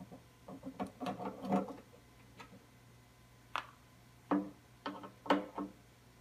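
Screwdriver backing steel screws out of a CD recorder's metal case: irregular small clicks and ticks of the bit and screw against the panel. There is a cluster of clicks about a second in and several sharper clicks in the second half.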